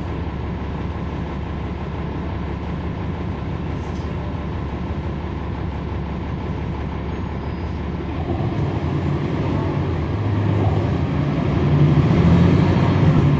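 Cummins ISL9 diesel engine of a 2011 NABI 40-SFW transit bus, heard from the rear seats near the engine, running steadily. About eight seconds in, the engine note grows louder and rises as the bus pulls harder under power, peaking near the end.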